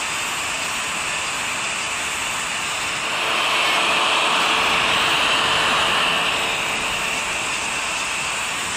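Handheld die grinder running steadily with a coarse 1/4-inch-shank Saburrtooth flame burr, grinding wood to round over an owl carving's beak. The grinding grows louder from about three seconds in until near six and a half seconds, then eases back.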